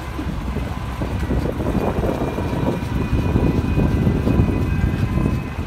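Vintage fire engine's engine running as it drives slowly past over grass, growing louder as it comes closest about four seconds in.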